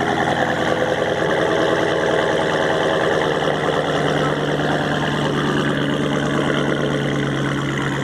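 Dodge SRT Hellcat's supercharged 6.2-litre Hemi V8 idling steadily with a loud exhaust note, which the owner takes for a non-stock, possibly mid-muffler-deleted, exhaust.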